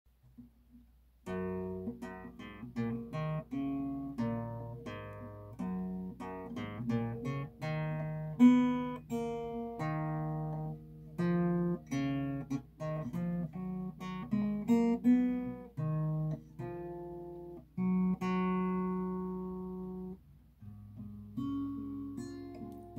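Acoustic guitar playing an instrumental intro of picked notes and chords, with a longer ringing chord about three-quarters of the way through and softer playing near the end.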